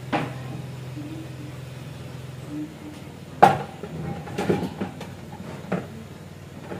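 A few sharp household knocks and thuds, the loudest about three and a half seconds in, over a steady low hum that stops about two and a half seconds in.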